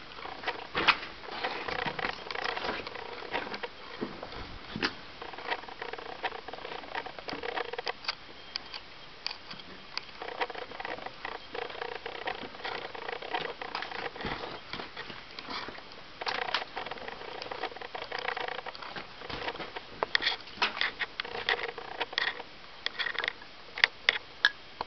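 Water dripping and trickling in a mine tunnel: an irregular patter of small drips and ticks over a steady wet hiss.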